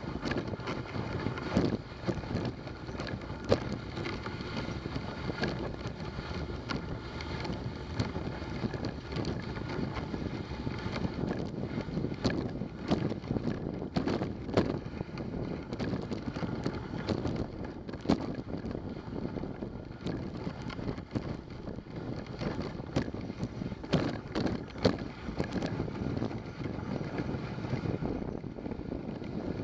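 Dog sled running along a snowy trail: a steady rumbling hiss of the runners on the snow, with frequent small knocks and clicks from the sled as it travels.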